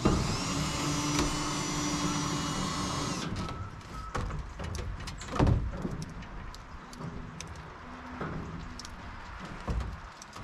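Power drill running for about three seconds, its whine rising as it spins up, then stopping. After it come scattered knocks and a scrape from handling the fittings.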